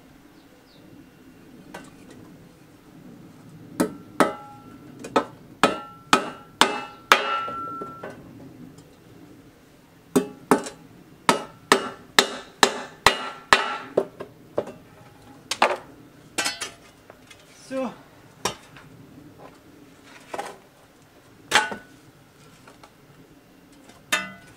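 Hammer blows fitting a steel shovel head onto its wooden handle: two runs of steady strikes, about two a second, some with a short metallic ring, then a few single blows spaced further apart.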